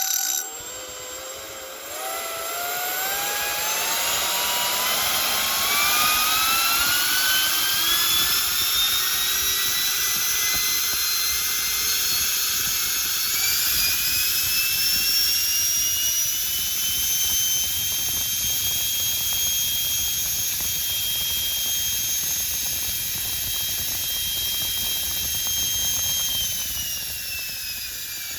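64 mm five-blade electric ducted fan with a 4300 kV brushless motor spinning up. Its whine rises steadily in pitch for about fifteen seconds over a jet-like rush of air. It holds at top speed for about ten seconds, then begins to drop in pitch near the end as it is throttled back.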